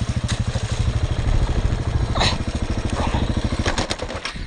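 KTM 690 enduro's single-cylinder engine running with a rapid, even thumping beat in a river crossing, with water splashing around the bike. The engine note dies away near the end.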